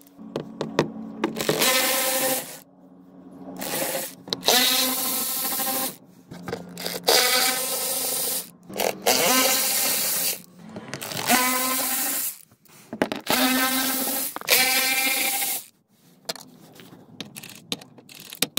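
Cordless electric ratchet with a socket on an extension spinning out the 7mm bolts of a car's underbody tray, running in about seven short whirring runs of a second or two, some bending in pitch, with sharp clicks and knocks between them.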